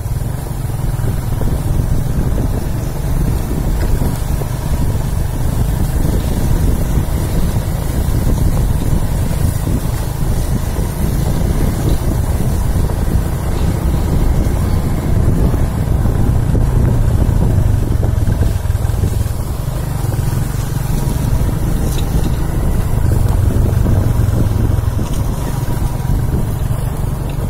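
Motorcycle engines running steadily on the move, a continuous low drone with wind buffeting the microphone.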